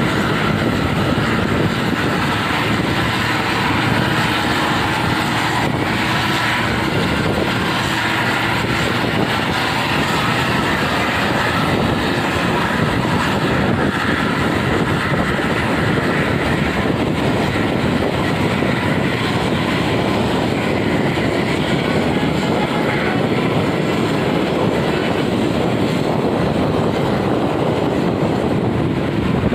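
Loud, steady engine and road noise of a moving vehicle at speed, with no breaks.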